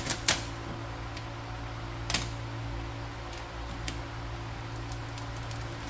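Plastic vapor-barrier sheet being pressed back onto a truck's inner door panel by hand: a couple of sharp clicks just after the start, another about two seconds in and a few faint ticks, over a steady low hum.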